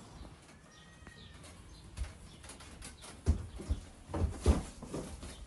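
Soft knocks and thuds of a child crawling on hands and knees across deck boards, the loudest a little past the middle. A few faint bird calls sound near the start.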